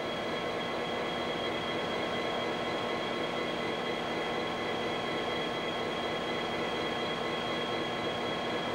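Steady drone of idling diesel locomotive engines inside an enclosed engine house, with a constant high whine running over it.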